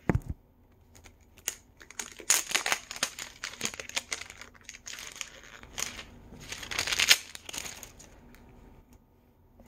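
Crinkly toy packaging being handled and torn open by hand: irregular rustling and crackling in several bursts, the loudest about two-thirds of the way through.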